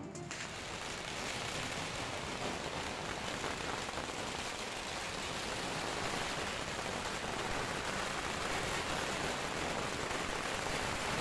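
Strings of firecrackers going off together in a continuous dense crackle of rapid pops, with no break.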